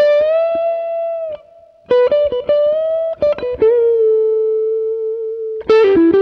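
Harley Benton SC550 Deluxe electric guitar playing a single-note lead line. It opens on a held note bent slightly upward. After a short pause comes a quick run of picked notes, then a long sustained note, and a few fast notes near the end.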